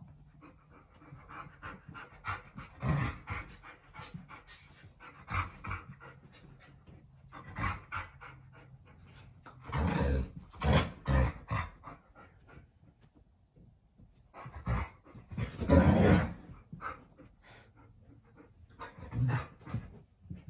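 Alaskan Malamutes, an adult and a puppy, play-fighting: a string of short, irregular bursts of dog vocalising and breathing with scuffling, the loudest about three-quarters of the way through.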